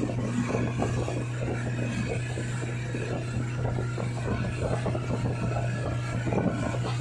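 Mercury four-stroke outboard motor running at a steady speed under load, a constant low drone, over the rush and splash of the churning wake.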